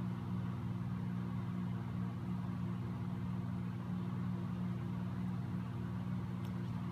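A steady, unchanging low motor hum.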